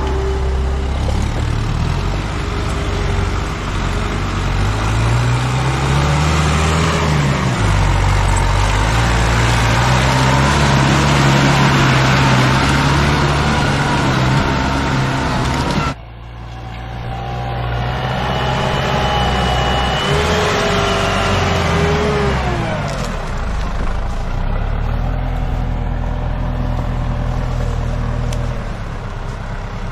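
Diesel engines of forestry tractors working hard while skidding logs through deep mud, revving up and easing off. About halfway through the sound cuts abruptly to another tractor's engine, which revs with a higher whine alongside it.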